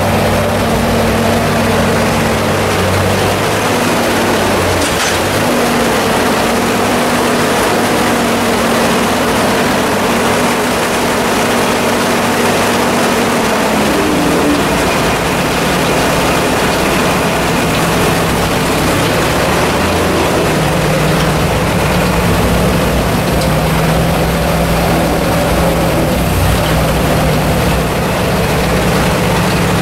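1956 Ford tractor's four-cylinder engine running while the tractor is driven at low speed. Its note changes about halfway through.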